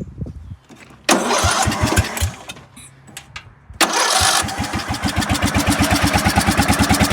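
Riding lawn mower engine, run with its muffler removed and on choke, being cranked by the electric starter: a first try about a second in sputters a few times and dies away, then a second crank near four seconds in catches and the engine runs with a fast, even exhaust beat.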